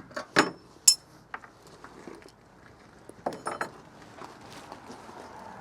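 Scattered metallic clinks, clicks and knocks of tools and sheet-metal parts being handled while an RV furnace is taken apart. A sharp ringing clink comes about a second in, and a quick cluster of clinks just past three seconds.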